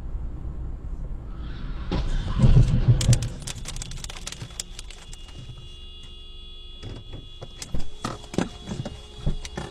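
Road noise inside a moving car, then a loud collision between cars just ahead about two and a half seconds in, followed by scattered clicks and knocks and a steady tone that holds on afterwards.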